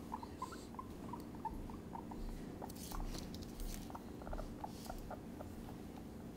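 Guinea pig giving soft, short squeaks, single chirps scattered irregularly, while a hand stroking its back makes a faint rustle in the fur.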